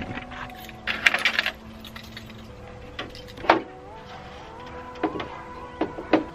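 Scattered metal clanks and knocks from handling a car's raised hood while it is being unbolted, with a short rattle about a second in. Faint steady tones that step up in pitch run underneath.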